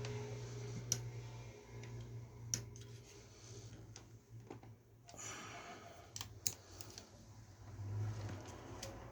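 Hands working on computer parts during assembly: several sharp clicks and a brief rustling scrape, over a steady low hum.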